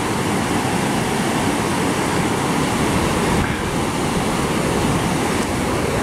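Steady rushing of a fast-flowing river running high with snowmelt.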